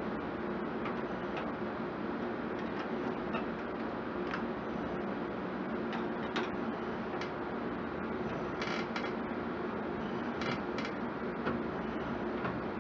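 Scattered light clicks and a short rattle of small metal parts, from hand work with screws and components in a desktop computer case, over a steady low hum.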